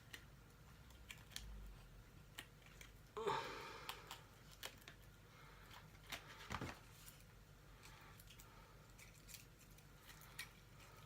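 Hands working a plastic kitchen gadget free of its packaging and tie: scattered small clicks and handling noises. There is a louder plastic rustle about three seconds in and another about six and a half seconds in.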